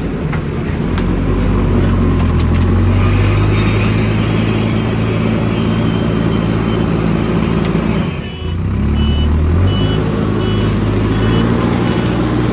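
Heavy diesel engine of earthmoving machinery running under load, with a brief dip about eight seconds in. After the dip a high-pitched back-up alarm beeps at a steady pace over the engine.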